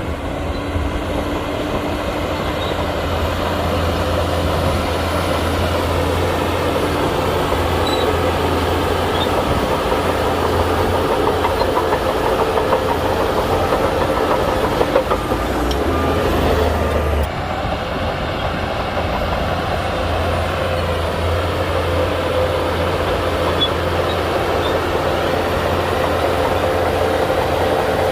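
Heavy diesel earth-moving machinery running steadily, a continuous engine drone with metallic clatter. The sound changes abruptly about seventeen seconds in.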